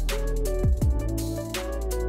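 Electronic background music with deep kick drums that drop in pitch, sharp drum hits and a sustained synth melody over a heavy bass.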